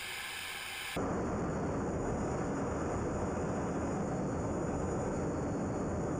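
Steady low rumble of jet engine and airflow inside a fighter jet's cockpit. About a second in, it abruptly replaces a thinner, higher hiss.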